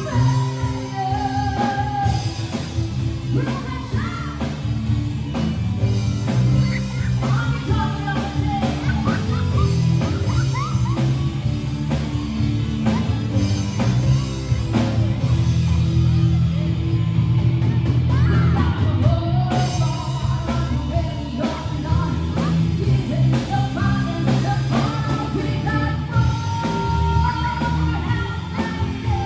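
Live rock band playing: a woman singing lead over electric guitar, electric bass, keyboard and drum kit. Her voice drops out for an instrumental stretch in the middle, then comes back.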